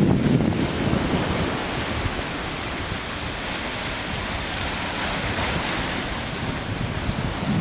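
Rough surf breaking and washing over the rocks of a breakwater: a steady rushing hiss of water, with wind. The sea is running high in a strong wind.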